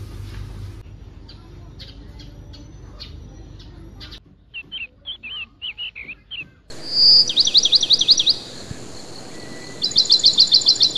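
Small songbird singing: a few short chirps, then two loud, fast trills of quick falling notes, the second about ten seconds in. Before that, a few seconds of shop background hum with faint clicks.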